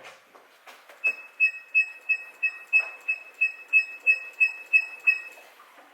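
Mercedes G63 hood squeaking in a quick rhythmic series, about thirteen short high-pitched squeaks at roughly three per second, stopping about a second before the end. The owner traces it to the hood's rubber touch points, which have rubbed through their protective tape and now rub on the metal.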